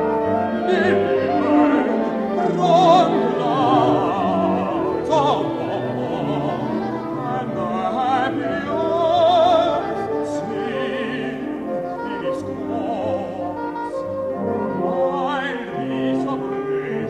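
Contemporary orchestral music with operatic singing: a trained voice sings with a wide vibrato over held orchestral chords.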